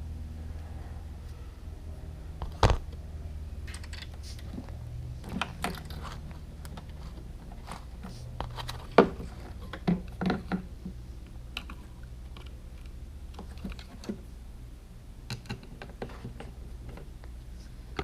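Scattered clicks and taps of hard plastic headlight parts being handled as a bulb wiring harness is worked loose, with sharper knocks about three seconds in and again about nine seconds in, over a steady low hum.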